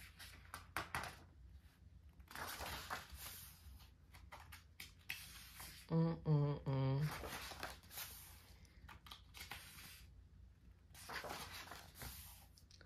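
Glossy photobook pages being turned by hand, with soft paper rustles and slides several times. About six seconds in, a person's voice gives a short hum in three quick pulses.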